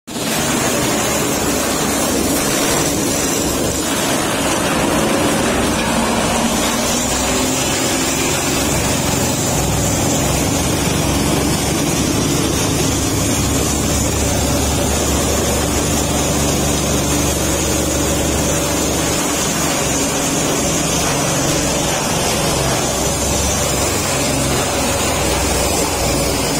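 Electric-motor-driven corn stalk chopper running steadily, its blades shredding corn stalks into fine chaff.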